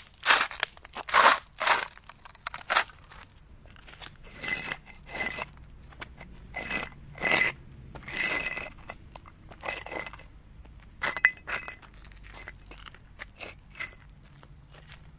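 Irregular crunching and clattering of handled objects, dense and loud for the first three seconds, then sparser knocks, several of them with a short ringing clink.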